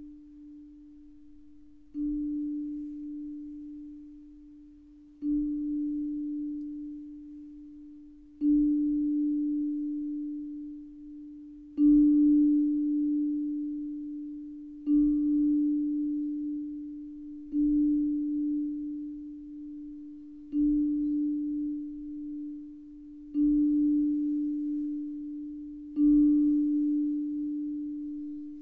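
Background music: a single low, bell-like tone struck about every three seconds, nine times, each strike ringing on and slowly fading, always at the same pitch.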